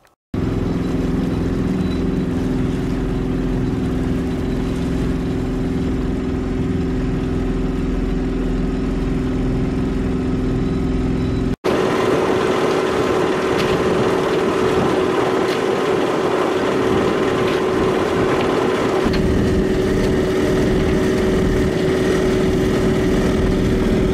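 Small sailboat engine running steadily while motoring, a constant hum over a deep rumble. The sound drops out for an instant about twelve seconds in and carries on with less rumble.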